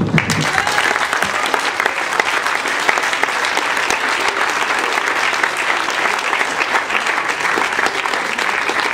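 Audience clapping, breaking out all at once at the end of a spoken poem and holding steady.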